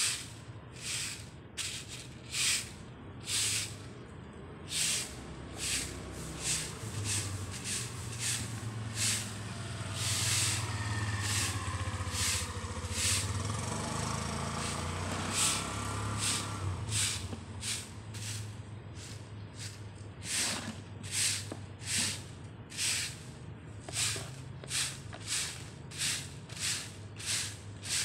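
Stiff-bristled broom sweeping pavement in repeated swishing strokes, about one a second, quickening a little near the end. A vehicle passes in the middle with a low rumble.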